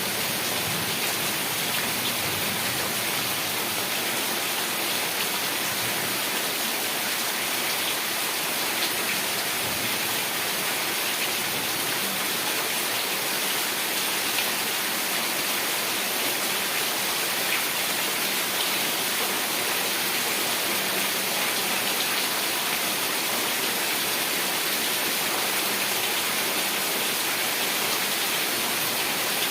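Heavy rain falling steadily: an even, unbroken hiss of countless drops with no thunder.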